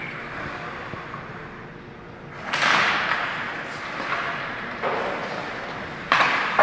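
Ice hockey play at the boards: skates scraping the ice, with sticks and the puck banging against the boards and glass. It is fairly quiet at first, then the scraping and banging start suddenly about two and a half seconds in, and again loudly near the end.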